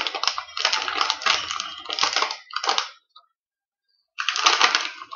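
Plastic snack bag crinkling and rustling as it is opened and handled, the crisp snacks inside rattling, in bursts, with a break of about a second midway.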